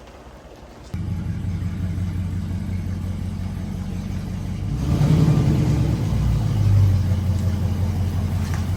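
A vehicle's engine running with a steady low note that starts abruptly about a second in, then grows louder and rises about four seconds later as it is revved or pulls away.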